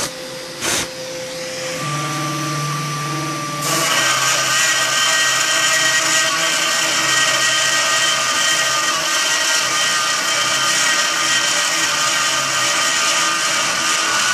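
Homemade CNC router's spindle motor running at speed and routing lettering into a wooden board, with steady whining tones from the machine. There is a short knock in the first second. About four seconds in, the sound turns suddenly louder and fuller and stays so.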